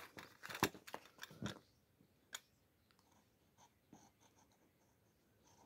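Light handling sounds of a sandal and a plastic glue bottle as glue is squeezed onto the shoe: a quick run of small clicks and scrapes in the first second and a half, a single sharp tick about two seconds in, then only faint ticks.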